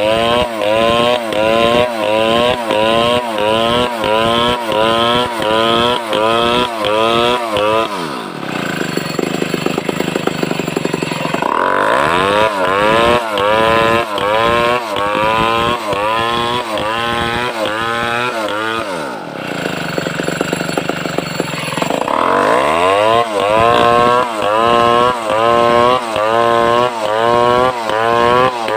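Large two-stroke chainsaw, a homemade Stihl 070 clone, running at high revs with its engine speed swinging up and down about twice a second. Twice it drops to idle for a few seconds and then revs back up.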